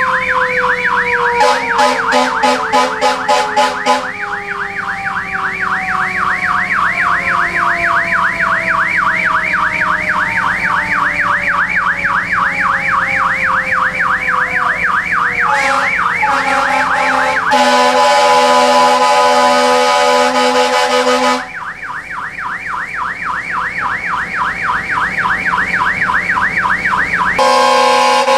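Fire truck sirens sounding together in salute: an electronic siren yelping rapidly and steadily while another siren's tone slowly winds down in pitch. Fire truck air horns blast over them several times, with one long blast of about four seconds in the middle.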